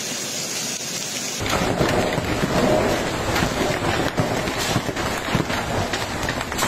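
Hailstones falling and striking the ground, first as a steady high hiss; about a second and a half in the sound turns louder and fuller, with a low rumble under it and many sharp hits.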